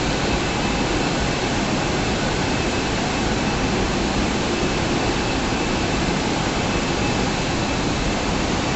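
Steady, even machinery noise of a bottling plant's running conveyor line, with a faint high tone held through it.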